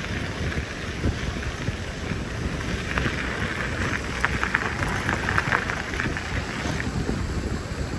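Wind rumbling on the microphone of a moving bicycle, with a crackling hiss that swells for a few seconds in the middle.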